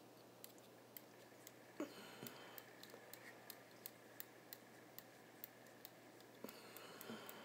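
Near silence, with faint, evenly spaced ticks about twice a second. From about two seconds in until near the end there is a faint sound of fly-tying thread being wound around the hook from a bobbin.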